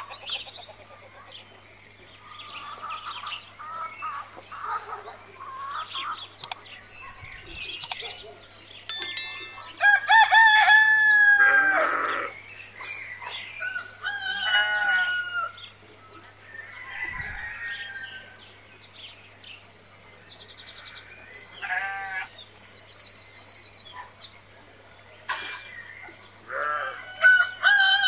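Chickens calling: a rooster crows about ten seconds in and again near the end, between hens clucking and small birds chirping. A faint steady low hum runs underneath.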